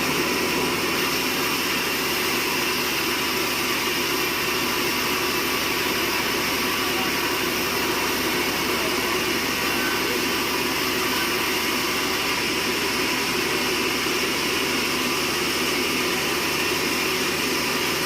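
Sawmill machinery running with a steady, unbroken drone at an even level.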